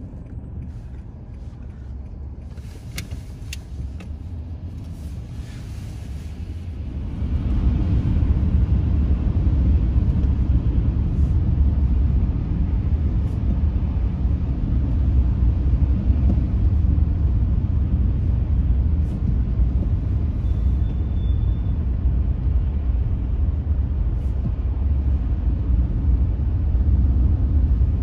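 Car driving on a city road: a steady low rumble of tyres and engine, growing clearly louder about seven seconds in and then holding steady.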